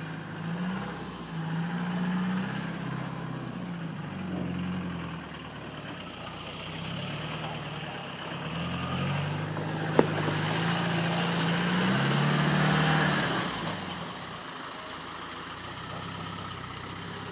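Off-road vehicle's engine working at low speed, its note rising and falling over and over, with the loudest, highest revs for a few seconds about two-thirds of the way through. A single sharp knock about ten seconds in.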